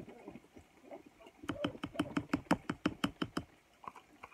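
A fork scraping and tapping inside a plastic container as melted peanut butter is scraped out: a quick run of sharp clicks, about eight a second, for about two seconds from a second and a half in, then a few lighter taps.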